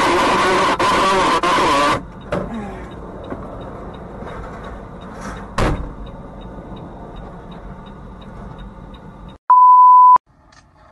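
Heard from inside a semi-truck's cab: three loud blasts with a wavering pitch in the first two seconds, then the truck running as it slows to a crawl, with one knock midway. Near the end comes a loud, steady, one-tone test beep of about a second.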